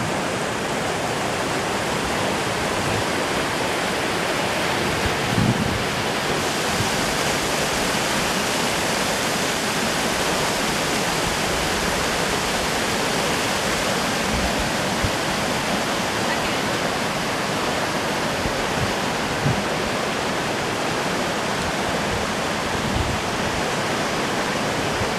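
River rapids rushing through a narrow rock gorge: a steady, even roar of white water, with a few faint low bumps now and then.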